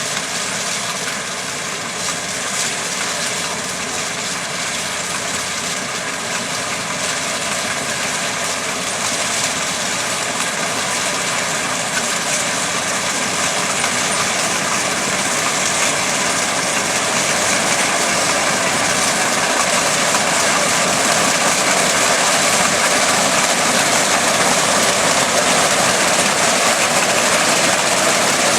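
AGRI-68 rice harvester running steadily while cutting lodged rice: a loud, continuous mechanical din of engine and cutting and threshing gear that grows a little louder toward the end.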